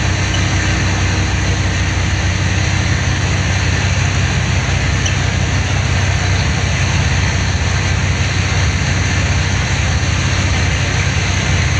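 Car ferry's engines running at a steady low drone under a constant rushing noise of wind and water as it sails.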